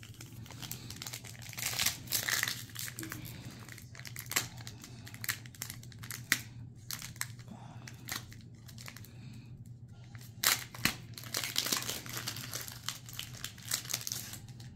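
Foil trading-card pack wrapper being torn open and crinkled, with irregular crackling and clicks throughout, over a steady low hum.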